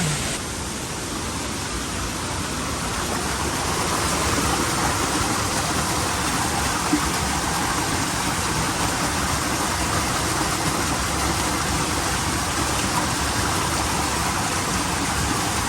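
Waterfall pouring steadily: a dense, even rushing that grows a little louder over the first few seconds.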